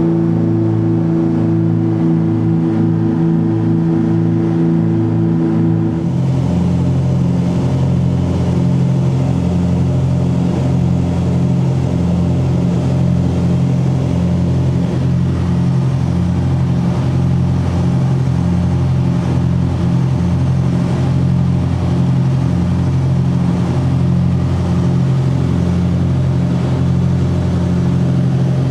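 The twin piston engines of a Cessna 404 Titan running steadily, with a slow throbbing beat between the two engines. About six seconds in the sound changes abruptly to a lower, deeper pitch.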